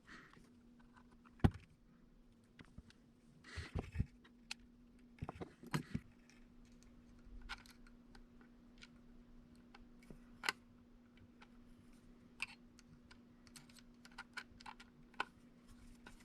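Scattered small clicks and taps of a small screwdriver and tiny screws on the drone's plastic body as the screws are started in by hand, over a faint steady hum.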